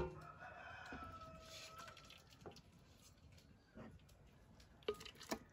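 Soft knocks and clinks of a ladle against a stainless steel stockpot and a glass blender jar as cooked shrimp heads are scooped into the blender, the sharpest knock at the very start and a few lighter ones later. A faint drawn-out bird call sounds through the first two seconds.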